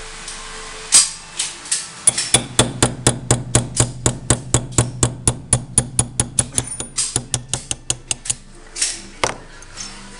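Small hammer tapping a steel pin punch against a Grand Power X-Calibur pistol slide to drive out a pin, in a rapid run of even metallic taps, about six a second. A few single, spaced taps come before the run and two more near the end.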